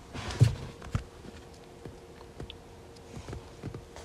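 Faint clicks and small handling noises from a phone being held and tapped, over a steady low hum inside a car. A short low sound comes about half a second in and a sharper click about a second in.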